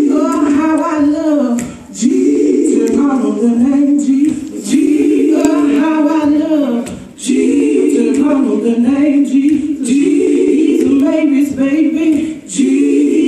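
A group of women singing a gospel song a cappella together, in sung phrases a couple of seconds long with short breaths between them.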